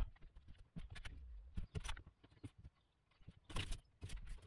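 Faint, scattered knocks and scuffs as a man steps across a van's plywood floor and handles plywood bed boards on a metal frame, with the loudest few knocks about three and a half seconds in.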